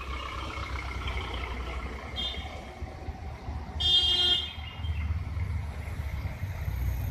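Road traffic with low engine rumble from vehicles rounding the bend, a short vehicle horn toot about two seconds in, and a louder horn blast of about half a second near four seconds in.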